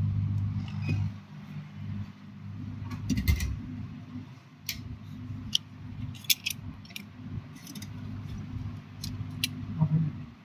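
Scattered light, sharp clicks and taps of steel tweezers being handled at a tablet's charging-port board, about ten in all from about three seconds in, some in quick pairs, over a steady low hum.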